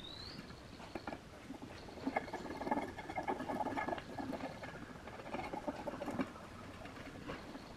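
Fingertips pressing and rubbing along a woofer's rubber surround and metal frame rim, giving soft, irregular scratching and rustling.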